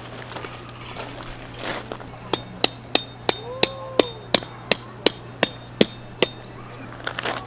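A hammer driving a metal tent peg into the ground: about a dozen sharp, ringing strikes, about three a second, starting a couple of seconds in and stopping a little over a second before the end.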